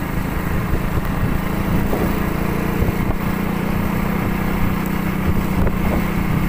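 Motorcycle engine running at a steady speed while riding, its hum holding one pitch throughout.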